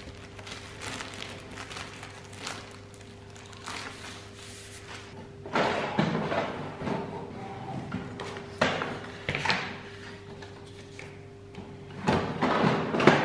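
Crinkling of plastic wrap on a pack of paper, then the plastic paper cassette of an Epson printer being slid out, handled and pushed back in, with several sharp knocks and clatters, the loudest near the end.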